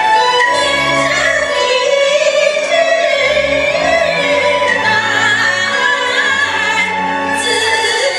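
A high voice sings a slow Chinese opera-style song in long, wavering held notes over orchestral accompaniment with a stepping bass line.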